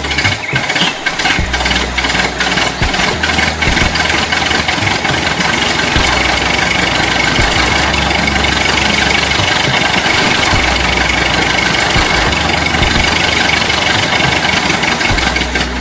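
Tractor engine running steadily at idle, with many rapid clicks and rattles over it.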